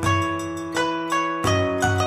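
Background music: a melody of short ringing notes that start sharply and die away, about three a second, over a low bass pulse.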